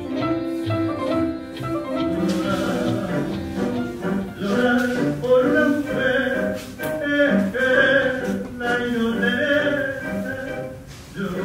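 Tango music with a singing voice. Held instrumental notes play at first, and a wavering vocal line comes in about two seconds in. The music dips briefly near the end.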